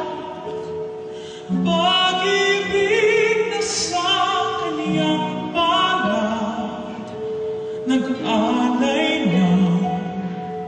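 Background music: a slow classical-style piece with a sustained melody whose notes waver in pitch.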